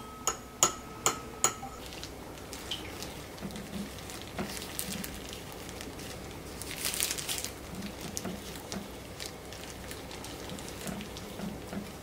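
A small fork clinking against a ceramic bowl while egg is beaten, about five quick strikes in the first two seconds with a clear ringing note from the bowl. After that only faint scattered soft rustles.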